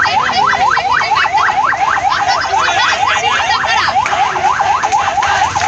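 Ambulance siren sounding a fast yelp: a rapid, unbroken string of rising wails, about five or six a second.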